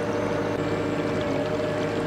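Inland cargo ship's diesel engine droning steadily as the vessel passes, with a rush of water at its hull.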